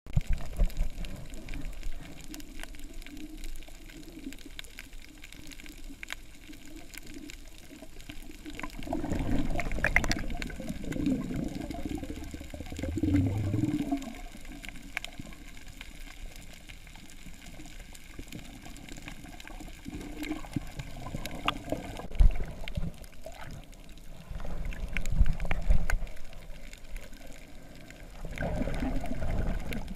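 Underwater sound through a GoPro's waterproof housing on a coral reef: a muffled wash of moving water, with several louder low surges and scattered faint clicks. A single sharp knock comes a little past the middle.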